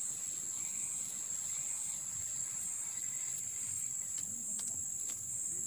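Steady high-pitched chorus of insects shrilling from the pondside vegetation, with a few faint ticks about four to five seconds in.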